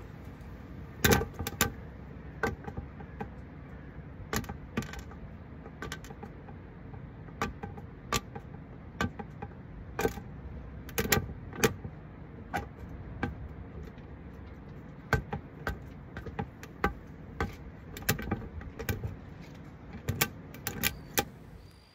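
Irregular sharp ticks and taps, about one or two a second, from a hooded crow feeding on a branch right above the camera, as crumbs of its food drop onto it. A steady faint hiss lies underneath.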